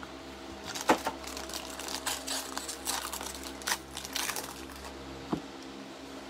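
Hands handling trading cards and their plastic and foil wrapping: scattered rustling with a few sharp clicks and taps, the loudest about a second in and another after five seconds, over a steady low hum.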